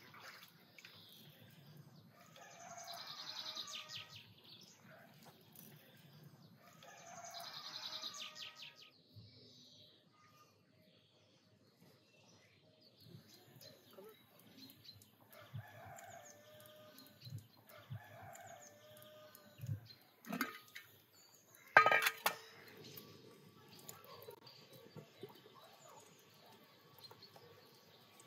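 A rooster crowing twice, each crow about two seconds long, followed by a few softer fowl calls. About two-thirds of the way through there is one sharp clink with a short ring, the loudest sound here.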